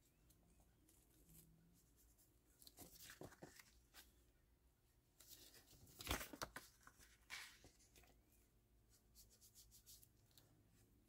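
Faint scuffing and rustling of paper: a foam ink blending tool dabbed and rubbed along the edges of a book-page pocket, and the paper shifted on the mat. The sounds come in short scattered strokes, the loudest about six seconds in.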